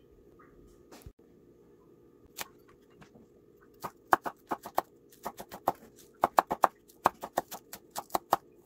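Kitchen knife slicing spring onion into rounds on a bamboo cutting board: a quick run of sharp knocks of the blade on the board, about four to five a second, starting about four seconds in, after a couple of single knocks.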